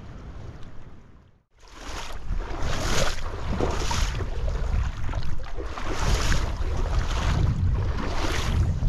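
Wind buffeting the microphone over the rush of a flowing creek, with a brighter rushing that swells about once a second. The sound drops away to near silence about a second and a half in, then comes back loud.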